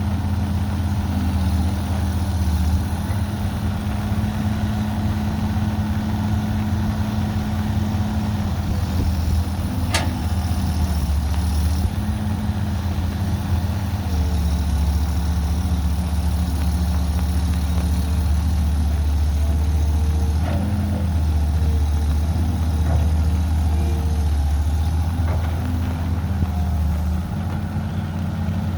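Caterpillar 312B excavator's diesel engine running steadily, its pitch shifting up and down every few seconds as the load changes. One sharp knock about ten seconds in.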